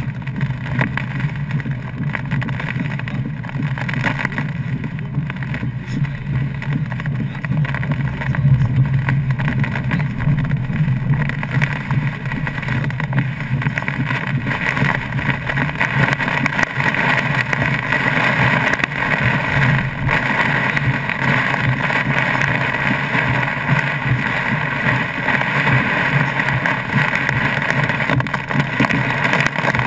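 Inside a moving car's cabin: steady road and engine noise, with heavy rain mixed with hail hitting the roof and windscreen, the hiss of the downpour growing louder from about twelve seconds in.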